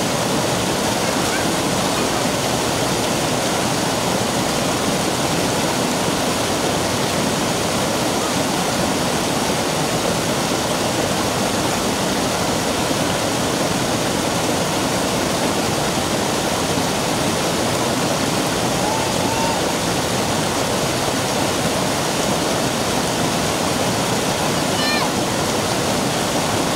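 Mountain stream rushing steadily over a rock slab in small cascades.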